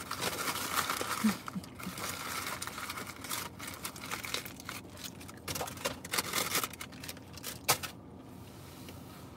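Paper fast-food packaging crinkling and rustling as it is handled, in uneven bursts, with one sharp crackle near the end.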